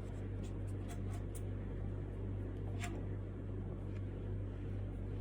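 Steady low background hum in a small room, with a few faint light ticks in the first second and a half and one more about three seconds in.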